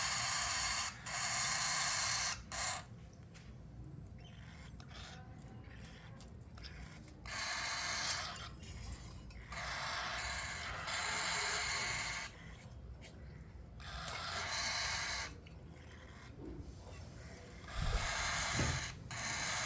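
Cockatiel chicks' raspy, hissing food-begging calls during syringe hand-feeding, coming in stretches of a second or two with short quieter gaps.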